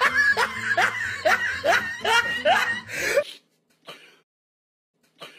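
A person's voice in a quick run of short pitched bursts, about two to three a second, over a low steady tone. It cuts off abruptly about three seconds in, leaving near silence broken by a couple of faint short sounds.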